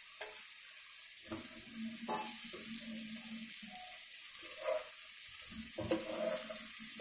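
Half-boiled potato slices tipped into a pan of frying onions and stirred in with a spatula: a soft, steady sizzle with scattered scrapes and taps of the spatula against the pan.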